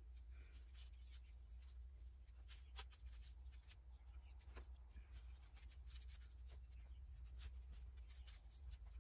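Near silence: faint scattered rustles and light taps of glued tissue paper being pressed with a pencil onto an ornament ball, over a low steady hum.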